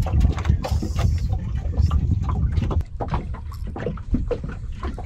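Wind rumbling on the microphone aboard a small open fishing boat, with water lapping at the hull and many short, irregular clicks and knocks.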